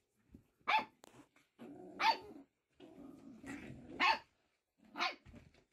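Six-week-old Pyredoodle puppies play fighting: four sharp, high yips that fall in pitch, with low growling running between them through the middle.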